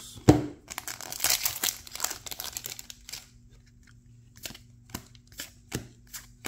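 A single thump just after the start, then the foil wrapper of a trading-card booster pack crinkling and tearing as it is opened. After that the cards are slid one by one off the stack, with light clicks about two a second.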